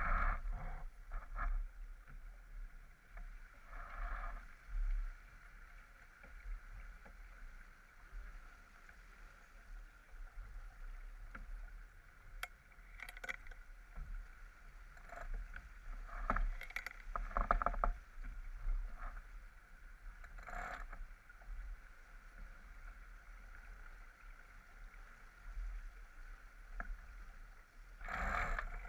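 Water rushing along the hull of a J/24 sailboat under sail, with wind buffeting the microphone in an irregular low rumble. The water noise swells in patches, and a few short clicks and knocks come through around the middle.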